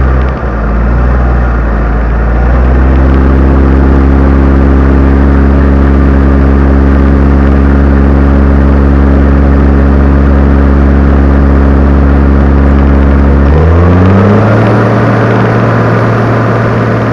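New Holland T7030 tractor's six-cylinder diesel engine running at a steady, loud pitch, heard close to its exhaust stack. Near the end the engine note rises as it revs up and holds higher.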